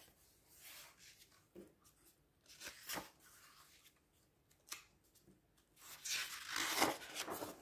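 Paper rustling as a picture book is handled and its cover and first page are turned, with a few small taps and a louder swish of paper near the end.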